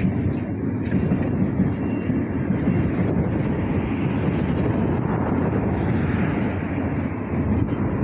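Steady rumble of an elevated MRT train running along a concrete viaduct.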